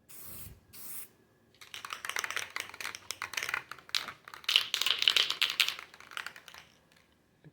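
Aerosol spray paint can being shaken hard, its mixing ball rattling in quick, uneven clicks for about five seconds. Two brief noises come first.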